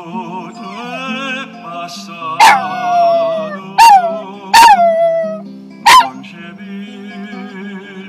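A four-month-old Cairn terrier puppy howling along to a sung ballad. It gives four howls, each starting with a sharp yelp and sliding down in pitch, two long and two short, louder than the music. The recorded singer's vibrato voice and accompaniment run underneath.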